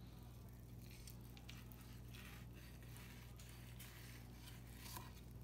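Faint, soft wet scraping and squishing of a fillet knife sliding between a trout fillet's skin and flesh to skin it, over a steady low hum.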